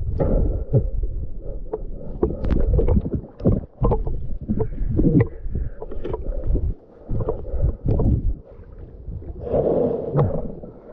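Underwater knocking, clicking and rumbling as a diver wrestles a sunken kayak seat free from the silty riverbed. About nine and a half seconds in, a burst of splashing as the camera comes up to the surface.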